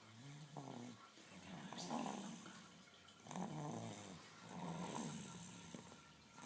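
Snoring: slow, rasping breaths in and out, one about every second and a half, some with a low buzzing rattle.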